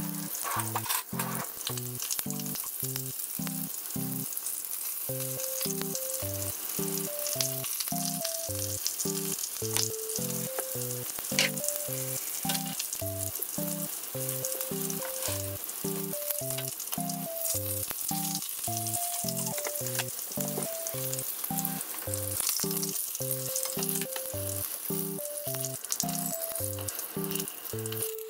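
Oil sizzling steadily as panko-breaded cutlets shallow-fry in a frying pan, with light background music with a steady beat underneath.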